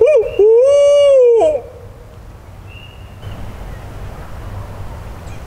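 Loud owl hooting in the barred owl pattern: a few quick rising and falling hoots, then one long, held hoot that drops away about a second and a half in.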